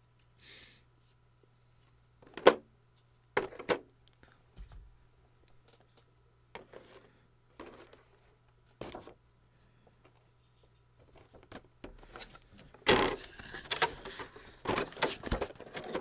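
Small plastic items and packaging being handled on a desk: a string of separate clicks and knocks, the sharpest about two and a half seconds in, then from about thirteen seconds a dense, continuous rustling and crackling of packaging being worked with the hands. A faint steady low hum sits underneath.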